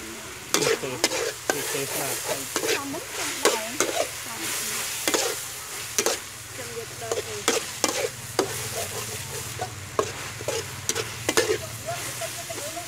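Beef slices sizzling in a steel wok while a metal spatula scrapes and clanks against the pan in quick, irregular strokes as the meat is stir-fried.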